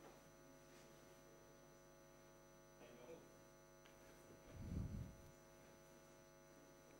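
Near silence with a steady electrical mains hum. A brief low thump comes a little after four and a half seconds in.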